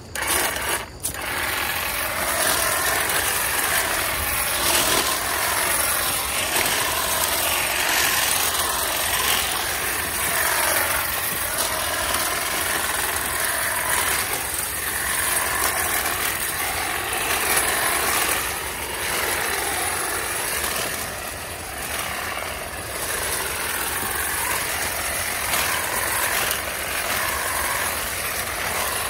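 Hedge trimmer running as it cuts through weeds and vines, its pitch rising and falling every second or two as the blades take load.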